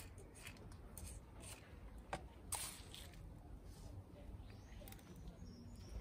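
Faint, scattered clicks and rustles of seeds being tipped by hand into plastic milk-bottle bird feeders, with two sharper clicks a little past the middle, over a low steady rumble.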